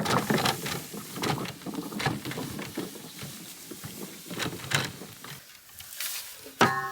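Dry hay rustling and crackling in irregular bursts, with light knocks, as a freshly pressed, twine-tied hay bale is handled and set down. Near the end comes a short, loud pitched sound.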